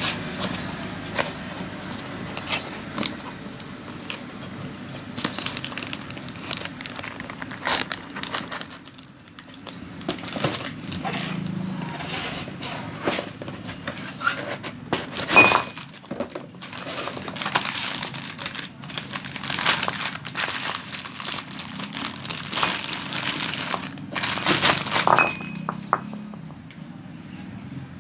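Handling and unpacking of a new motorcycle rear brake drum: packaging crinkling and rustling, with many irregular clicks and light metallic clinks.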